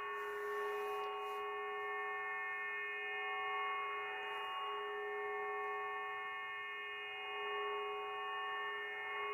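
Unidentified multi-tone signal received on a shortwave radio in lower sideband mode: a steady chord of several held tones over light hiss, with the lowest and strongest tone briefly dropping out about four and a half seconds in. Nothing above about 3 kHz comes through, the width of the receiver's sideband filter.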